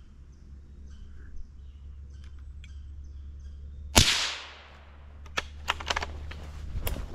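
A single rifle shot about four seconds in, a sharp crack that rings out briefly through the woods, followed by a few sharp clicks and rustles. Faint bird chirps sound before the shot.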